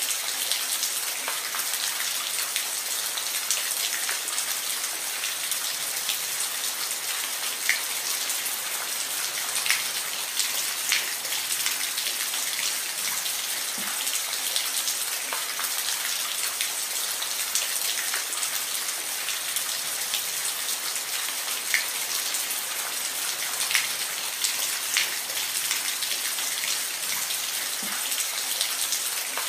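Steady rain falling, an even hiss with scattered individual drops ticking sharply against a surface.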